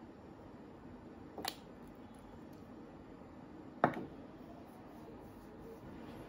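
Two sharp knocks against quiet room tone: a light one about a second and a half in, then a much louder one a little before four seconds in.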